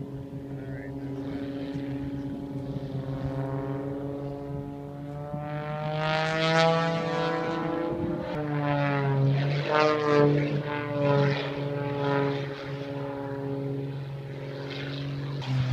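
Propeller-driven aerobatic airplane's piston engine running overhead. Its pitch climbs, drops sharply about eight seconds in as it passes, then rises and falls with the manoeuvres.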